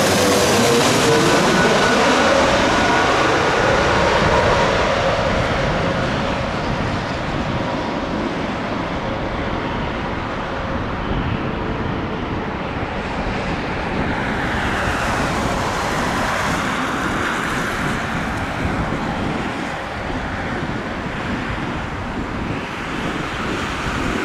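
Airbus A320neo airliner passing low overhead on landing approach. Its engine whine glides down in pitch as it goes over, then the engine roar eases over the next few seconds and carries on steadily as the jet flies away toward the runway.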